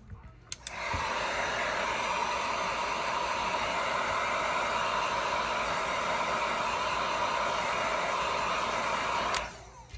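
An electric air blower, of the hot-air kind used to soften adhesive in phone repair, switched on with a click and running with a steady, even blowing hiss. It shuts off suddenly near the end.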